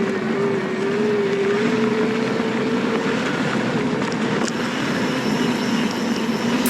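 A steady motor whine that drifts slowly upward in pitch, over a continuous hiss of wind and tyre noise, typical of an electric mountain bike being ridden on a trail.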